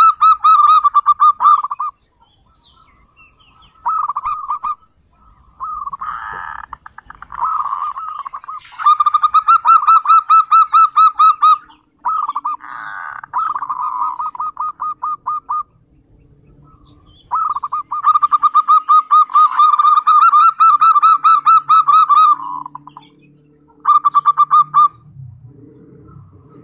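Zebra dove (perkutut) giving its 'ngerot' (kerot) call: long runs of rapid, rattling repeated notes, each run lasting a few seconds, with short pauses between them.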